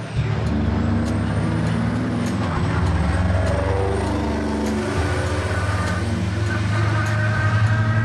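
Diesel engines of two semi-truck prime movers running hard under full acceleration on a drag strip: a loud, continuous low drone whose pitch shifts as they pull away.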